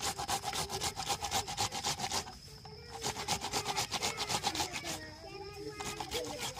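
Rapid, even scraping or rubbing strokes, about ten a second, in runs of about two seconds with short breaks, with voices talking underneath.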